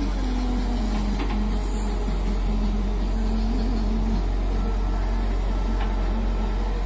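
JCB tracked excavator's diesel engine running steadily while the arm digs. Its pitch rises and dips slightly in the first few seconds, then holds even.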